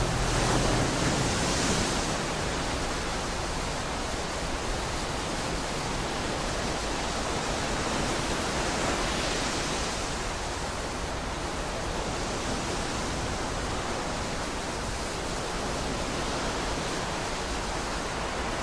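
Steady hiss-like noise with no tune or beat, a noise passage within an experimental black metal track; it brightens slightly in the highs about a second in and again around ten seconds in.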